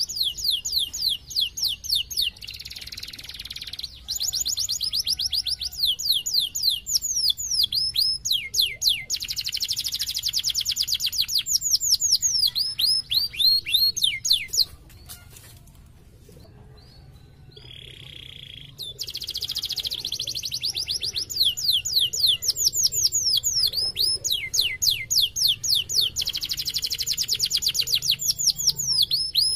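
Domestic canary singing a long, fast song of rapid trills and quick downward-sweeping notes. The song stops for about four seconds around the middle, then starts again.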